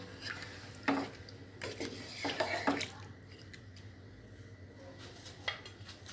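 A wooden spatula stirs raw chicken pieces in water in a kadai. Several knocks and scrapes against the pan with the wet squish and slosh of the pieces come in the first three seconds, then it goes quieter, with one more click near the end.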